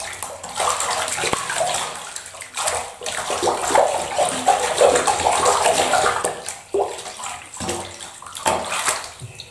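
Bathwater sloshing and splashing in a filled bathtub as hands rub and scoop water over a cat to rinse out the shampoo, coming in uneven surges.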